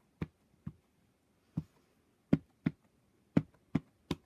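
Stampin' Up Classic ink pad dabbed face down onto a large red-rubber marbled background stamp to ink it: about eight short, sharp taps at irregular intervals.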